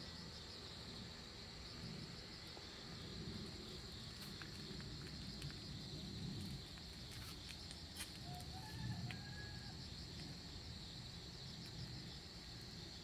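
Insects trilling steadily in the background, a continuous high buzz. There are scattered faint clicks, and a short, faint whistle-like call comes about eight to nine seconds in.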